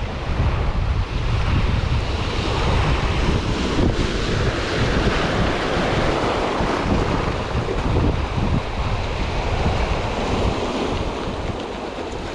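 Sea waves washing on a choppy shore, with wind buffeting the microphone as a steady low rumble.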